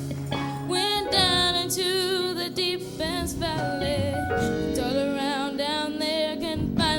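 A woman singing a gospel solo in long, wavering held notes with vibrato, without clear words, over steady keyboard accompaniment.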